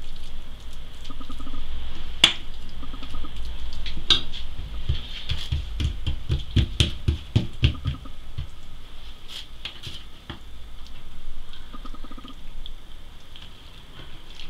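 A metal spoon clicks against a ceramic bowl twice, then hands pat and press soft dough on a wooden counter in a run of dull thumps.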